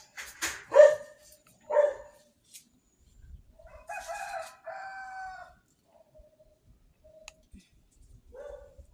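A dog barks three times, loudest about a second in, then a rooster crows once about four seconds in.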